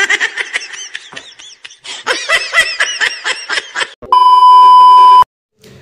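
Laughing sound effect: quick, high-pitched cackling bursts. About four seconds in, a loud steady test-tone beep of about a second, the kind played over TV colour bars, cuts off suddenly.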